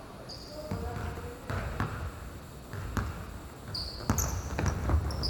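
Basketball bouncing on a court several times at an uneven pace, with short high-pitched squeaks in between.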